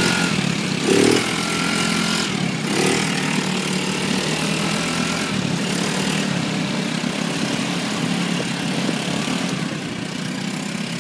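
Dune buggy's small engine running steadily while driving on a dirt road, under a continuous noisy rush, with a brief louder burst about a second in.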